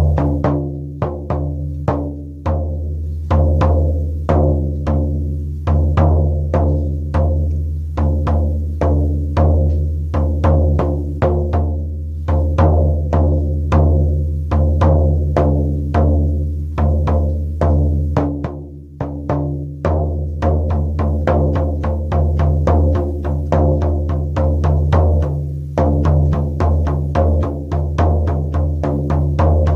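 Shaman frame drum beaten in a steady rhythm, about two to three strokes a second, each stroke ringing deep and low. The beating briefly eases about nineteen seconds in, then carries on.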